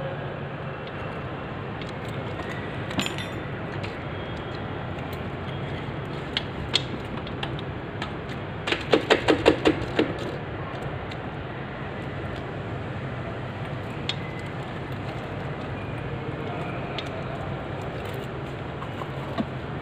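Scattered metallic clinks and rattles of a motorcycle drive chain and hand tools being handled, with a quick run of rattles about nine seconds in. A steady low hum runs underneath.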